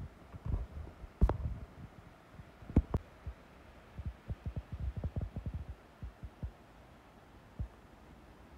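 Wind buffeting the microphone in irregular low thumps and rumbles. There are a few sharp knocks, the loudest about a second in and again near three seconds in.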